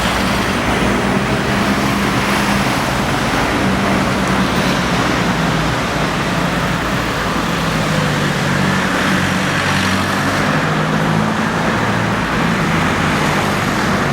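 Steady road traffic at a street crossing: vehicle engines running and cars passing, with a low engine hum throughout.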